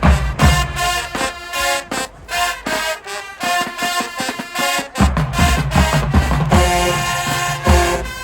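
High school marching band playing: brass melody over a drumline. The low drums drop out for a couple of seconds midway, then come back in with heavy hits about five seconds in.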